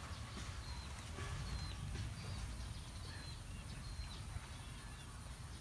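A string of short, high chirping calls, several a second, over a steady low rumble.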